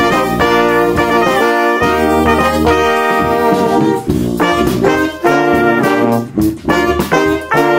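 Brass band playing in New Orleans second-line style: saxophones, trumpet, two trombones and a sousaphone over a drum kit, the horns playing punchy phrases with short gaps between them.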